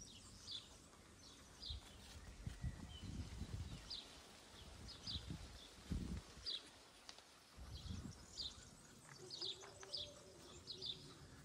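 Quiet outdoor ambience with small birds chirping: short, high, scattered chirps throughout, with a few low rumbles.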